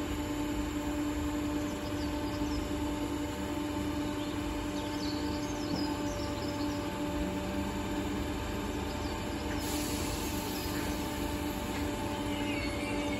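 British Rail Class 507 electric multiple unit standing at a platform, its equipment giving a steady hum with a held tone, over a few faint high chirps.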